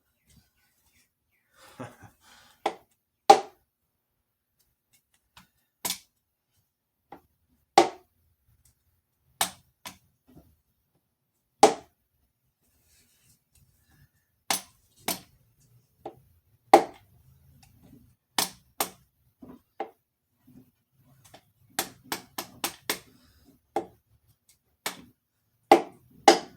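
Sharp taps on a piston being driven into its cylinder bore through a strap ring compressor on a Jeep 4.0 inline-six block, a string of single knocks at irregular intervals with a quick flurry near the end.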